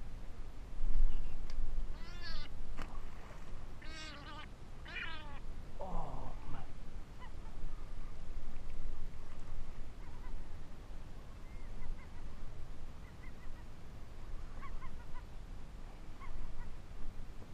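Gull calling: a run of harsh, wavering calls from about two to five seconds in, a lower squawk just after, then faint short calls near the end. A low rumble on the microphone about a second in is the loudest sound.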